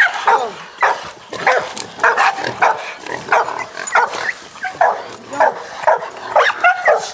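Hog dogs barking over and over, about two barks a second, baying a wild hog.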